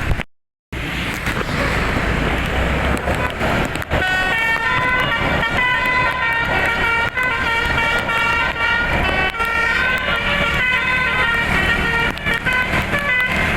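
Bus telolet horn with a DAV module, playing a multi-note tune of horn tones that step from pitch to pitch. It comes in about four seconds in. Before it there is a rushing noise after a brief dropout.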